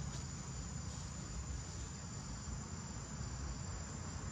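Steady high-pitched insect drone, one unbroken thin tone, over a low rumble.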